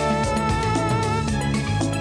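Instrumental background music with sustained melodic notes over a moving bass line.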